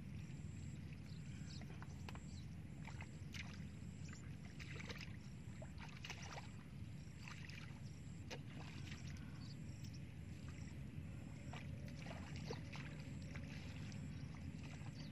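Footsteps splashing and sloshing through shallow muddy water, irregular splashes over a steady low rumble.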